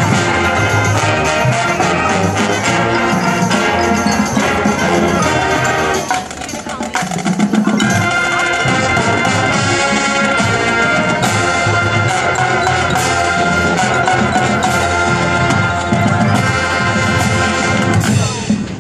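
High school marching band playing its field show: brass over drums and percussion. The music drops back briefly about six seconds in, then comes back in full.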